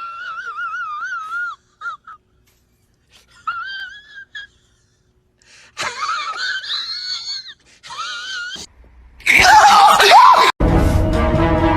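An animal's high-pitched, wavering whining cries, several separate calls with pauses between them, followed by a loud noisy burst; music starts after a sudden cut near the end.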